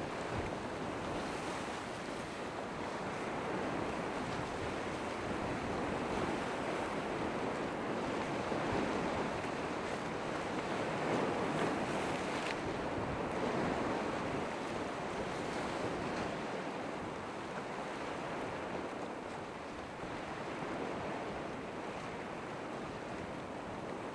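Surf at an ocean inlet: waves breaking and washing in a steady rush that swells and eases, with some wind.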